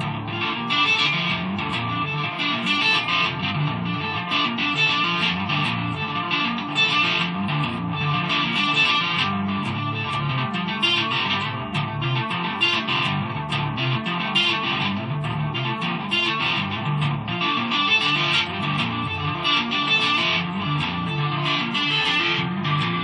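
Electric guitar played with a two-handed tapping technique, both hands fretting notes on the neck in continuous, flowing phrases.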